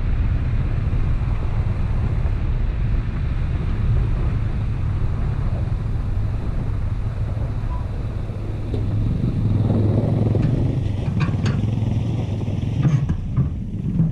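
Toyota Tacoma pickup driving slowly over a rocky dirt track, heard from the hood: a steady low rumble of engine and tyres on gravel. A few sharp clicks come near the end.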